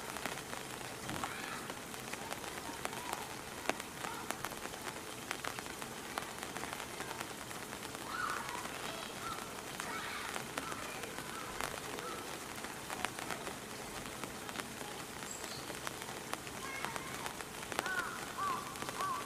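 Steady rain falling on hard surfaces, with sharp drip hits now and then.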